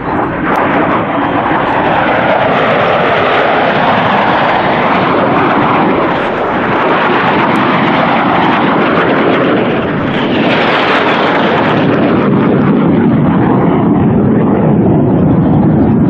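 Loud, continuous jet noise from a MiG-17's single turbojet engine as the fighter flies past in a display, with a sweeping, phasing tone as it passes. The sound turns brighter and harsher about ten seconds in.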